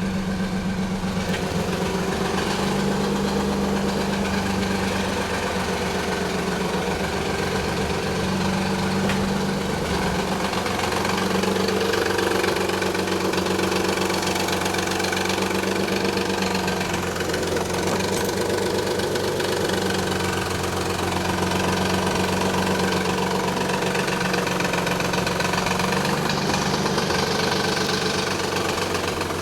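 1991 Nissan 300ZX's 3.0-litre V6 idling steadily with an abnormal mechanical noise, which the owner traced to a collapsed timing belt tensioner letting the belt run slack, plus noisy upper and lower idler pulleys.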